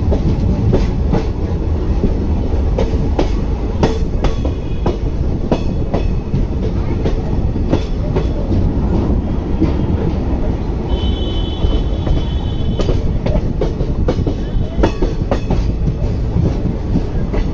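Train running along the track, heard from on board: a steady rumble with the irregular clatter of wheels over rail joints, and a brief high tone about eleven seconds in.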